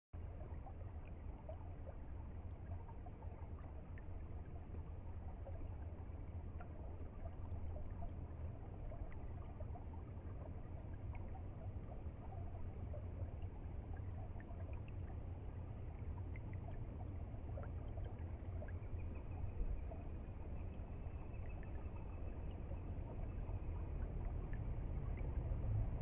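Shallow stream running over stones, a steady rush of water with small scattered splashes and drips.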